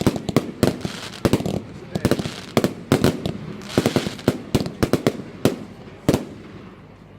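Consumer fireworks from an Evolution Fireworks 'Straatbaas' package going off: an irregular string of sharp bangs and cracks, some in quick clusters, thinning out near the end.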